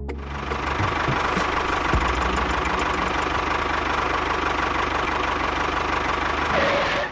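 A small engine running steadily, with a fast even pulse. It cuts in and out abruptly.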